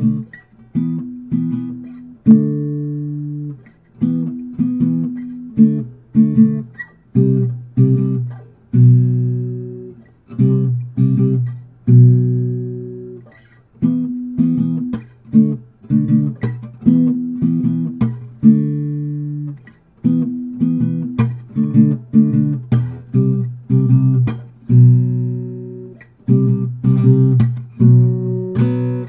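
Acoustic guitar played solo, its notes and chords plucked one after another, each ringing out and dying away in a steady, unhurried rhythm.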